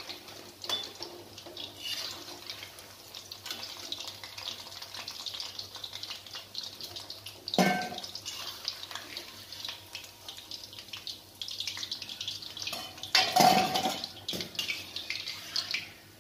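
Urad dal fritters sizzling in hot oil in a kadhai while a perforated steel skimmer stirs and lifts them. The skimmer clanks against the pan about eight seconds in and clatters again around thirteen seconds.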